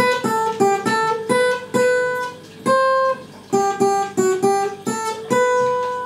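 Acoustic guitar played solo: an instrumental break of single picked notes, about two or three a second, with a couple of short pauses in the middle. It ends on a long note that slowly fades.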